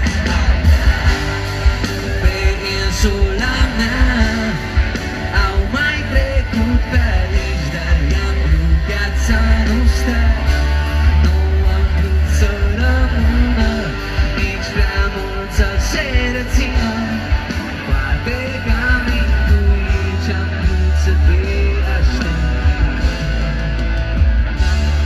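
Rock band playing live through a loud stage PA: electric guitar over heavy, booming bass and drums.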